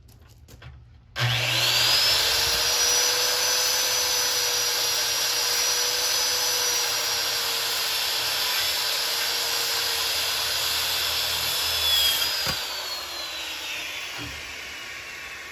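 Electric power saw starting about a second in and cutting through a 4x6 timber with a steady high whine, then winding down with a falling whine near the end, with a single knock as it slows.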